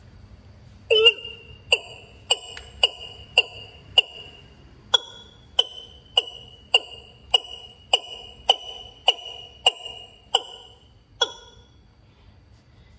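A recorded bird lure call played through a portable bird-trapping speaker: a sharp call repeated about twice a second, starting about a second in and stopping near the end.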